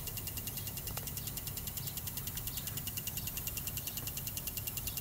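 Aftertreatment fuel doser valve on a Navistar MaxForce DT diesel clicking rapidly and evenly, several clicks a second, as it is pulsed open and shut by a key-on, engine-off actuator test at a low duty cycle.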